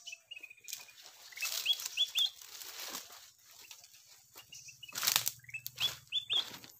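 Bird lure for trapping bulbuls (kutilang emas): short rising whistled notes in quick groups of three, twice, mixed with a few sudden bursts of rustling wing flaps.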